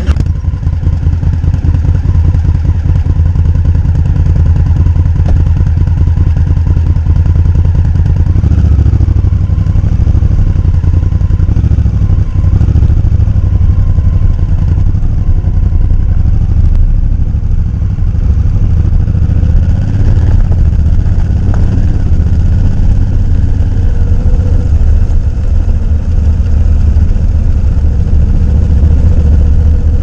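Honda CRF1000L Africa Twin's parallel-twin engine starting abruptly at the very beginning and then running steadily and loud close to the microphone, its pitch shifting a little around eight and twenty seconds in as the bike is ridden.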